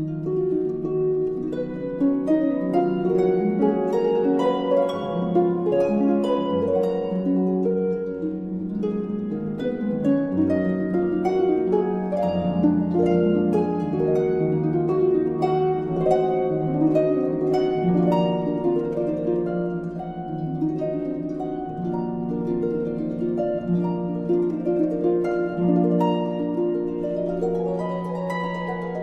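Background music of plucked strings in a harp-like style: a gentle, continuous run of overlapping notes that ring and die away.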